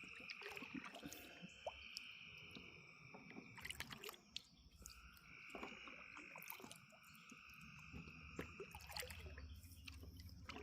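Faint chorus of frogs calling in long steady calls a few seconds each, breaking off and resuming, with scattered small clicks and drips of water.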